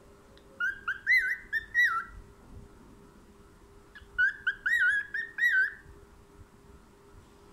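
Cockatiel whistling: two short phrases of warbling, up-and-down notes about three seconds apart.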